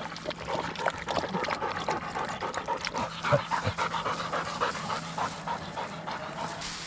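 A hunting dog panting, a quick run of short breaths.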